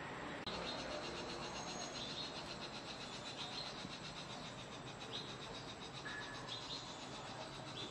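Insects trilling: a steady, fast, high-pitched pulsing that starts about half a second in, with a few brief chirps over it.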